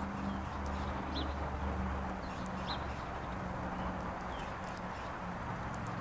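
Small songbirds giving a few short, high chirps over a steady outdoor hiss and low hum, with faint light ticks as birds feed.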